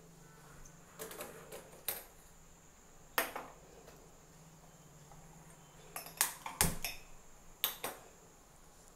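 Metal cookware clinking and knocking around a kadai on a gas-stove grate: about seven sharp clinks, spaced irregularly, with a cluster between six and eight seconds in. The loudest is a heavier knock about six and a half seconds in.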